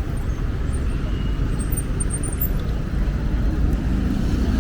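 Street traffic: a steady low rumble of passing cars' engines and tyres.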